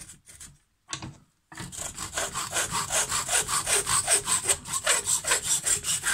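Handsaw cutting a wooden dowel of about 15 mm clamped in a bench vise. It starts with a few short strokes, then about a second and a half in it settles into fast, even back-and-forth strokes.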